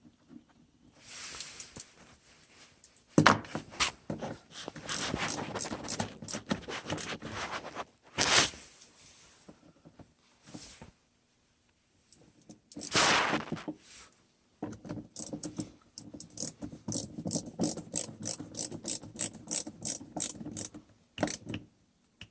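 Ratchet wrench clicking in runs while nuts are turned on the terminal studs of an ATV winch relay, with a few short rasping sweeps. Near the end comes a long run of quick, even clicks, about four or five a second.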